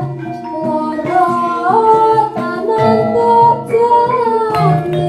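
Javanese gamelan ensemble playing a gending: bronze bonang kettle gongs and bar metallophones ring out steady struck notes over a low repeated beat, while a voice sings a line that slides between pitches.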